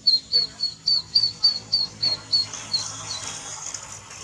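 Ducklings peeping: a run of about ten high, evenly spaced peeps, roughly three a second, that stops about three seconds in.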